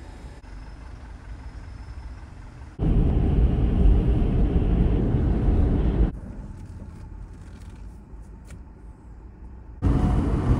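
Low rumble of a moving car's road and wind noise. It starts abruptly about three seconds in, stops suddenly about six seconds in, and returns near the end, with quieter outdoor ambience and a few faint clicks in between.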